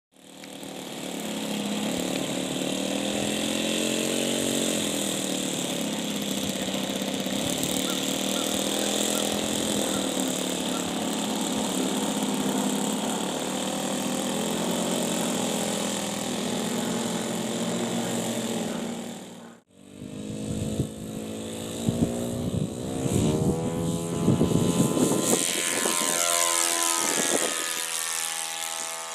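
Motor and propeller of a radio-controlled model Hawker Hurricane, running steadily with a high whine. About two-thirds of the way through, the sound cuts off abruptly. It then returns as the model flies past, its pitch sweeping up and down and its loudness rising and falling.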